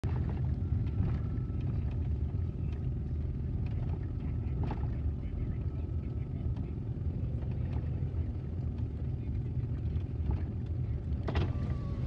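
Road and engine noise heard inside a moving car's cabin, a steady low rumble, with a few sharp clicks, the strongest near the end.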